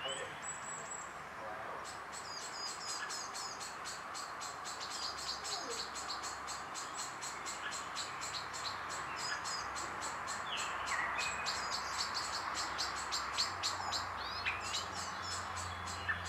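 Small birds chirping and twittering in a rapid, continuous stream of short high calls.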